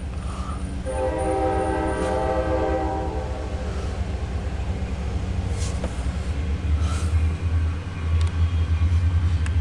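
CSX diesel freight locomotive sounding its air horn once, a steady chord of several tones for about two seconds starting about a second in. Under it runs the low rumble of the approaching train, which grows louder toward the end.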